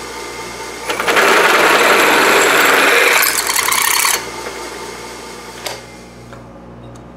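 Drill press running with a twist drill boring into a metal bracket clamped in the drill press vise; the cutting noise is loud from about a second in until about four seconds in, then the motor runs on more quietly, with a short click near the end.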